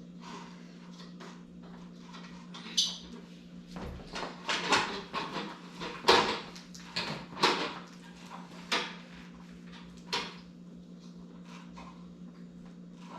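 Bicycle trainer being adjusted by hand: a run of irregular knocks and clacks for several seconds, the loudest near the middle, over a steady low hum.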